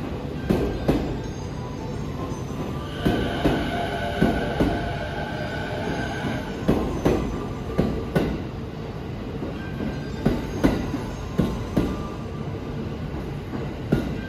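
JR E217-series electric train rolling slowly past, its wheels clacking over the rail joints, mostly in close pairs as each bogie crosses, over a steady rumble. From about three seconds in, a steady high tone sounds for about three seconds.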